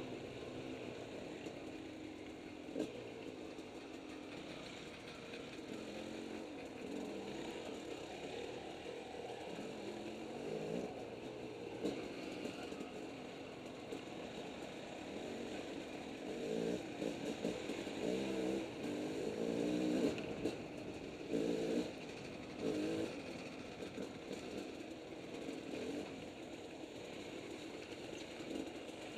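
Two-stroke dirt bike engine running under the rider, the throttle opened and closed as it works along a narrow trail, with a run of short revs rising and falling in pitch in the second half.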